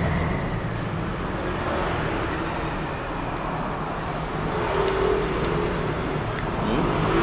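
Road traffic with a vehicle engine running steadily.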